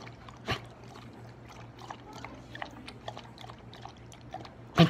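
Siberian husky lapping water from a collapsible silicone bowl held up to its mouth: quick, irregular wet laps and small clicks, with a sharper one about half a second in and a louder thump near the end.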